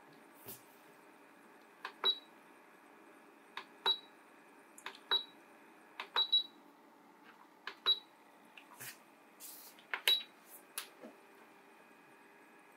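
Control buttons on an Asakuki 500 ml essential oil diffuser being pressed: each press gives a small plastic click followed by a short high beep, about seven times at irregular intervals, over a faint steady hum.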